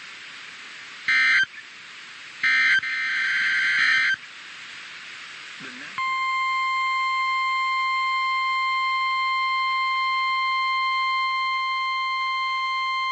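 NOAA Weather Radio alert signals: short buzzy bursts of SAME digital header data about one and three seconds in, then, from about six seconds in, the steady single-pitched 1050 Hz Warning Alarm Tone. The tone announces that a new warning, here a tornado warning, is about to be read.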